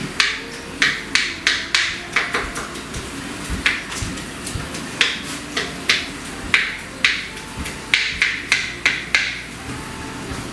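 Knife chopping dill fronds on a cutting board: sharp knocks that come in irregular quick runs, several a second, with short pauses between them.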